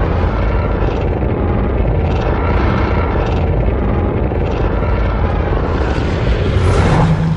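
Monsterverse kaiju film sound effect: a loud, dense low rumble pulsing about once a second. It swells near the end, then cuts off and dies away.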